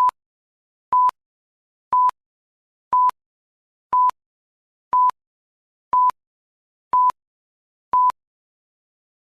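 A short electronic beep on a single steady pitch, repeating once a second, nine times, then stopping.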